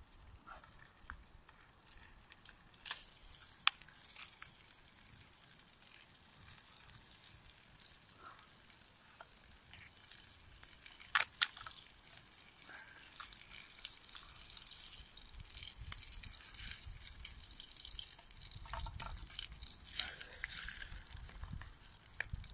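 Small wood fire crackling inside a folding steel camp stove, with a few sharp pops and a faint sizzle from the pan on top.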